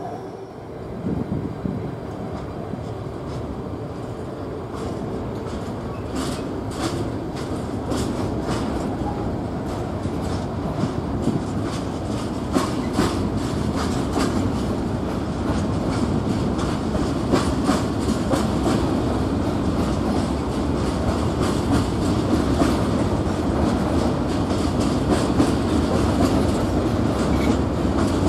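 A train rolling along the track, its wheels clicking on the rails over a steady rumble that grows gradually louder as it comes closer.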